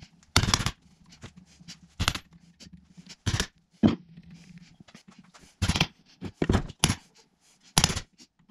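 Mini sledgehammer striking a hand impact driver set in a Phillips screw on a Subaru short block's cover: about nine sharp knocks at irregular spacing, driving stubborn screws loose.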